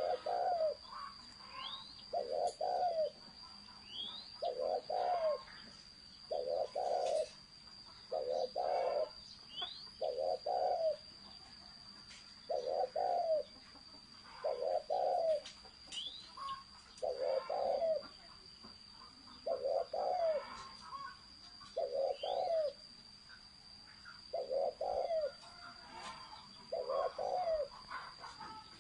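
Spotted dove cooing over and over, the deep 'thổ sấm' voice prized by Vietnamese dove keepers: low coo notes in short runs, about one every second or two. Faint short rising chirps sound above it now and then.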